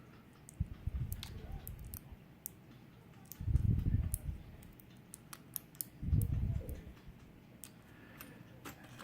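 Small metallic clicks and scrapes of lock shims being worked into the lock cylinder while it is taken apart, with two low rumbles of handling about three and a half and six seconds in.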